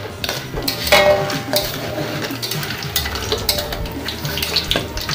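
A perforated metal skimmer scraping and clinking against a metal wok as fried meatball strips are scooped out of hot oil, with irregular clatter throughout. Under it the oil crackles with the dry crackle that signals the strips are fried crisp and ready to lift out.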